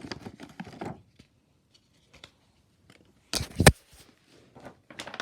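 Plastic packaging and gift bags crinkling and rustling as items are handled and sorted, with two sharp knocks about three and a half seconds in as something is set down.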